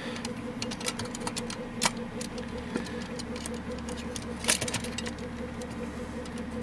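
Small clicks and taps of fingers handling and fitting parts into the sheet-metal frame of a Chinon FZ-357 floppy disk drive, the sharpest clicks about two seconds in and about four and a half seconds in, over a steady low hum.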